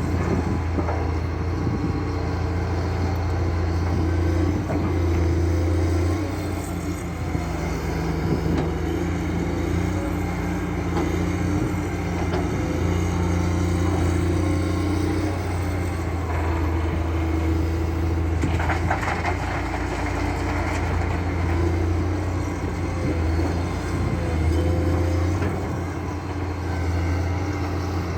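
Komatsu hydraulic excavator's diesel engine running steadily, its note swelling and easing every few seconds as the load changes. A short burst of metallic rattling comes about two-thirds of the way through.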